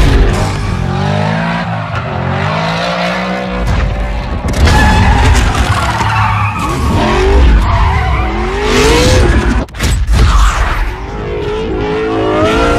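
A car engine revving hard, its pitch climbing and wavering, with tires squealing and skidding over a deep engine rumble.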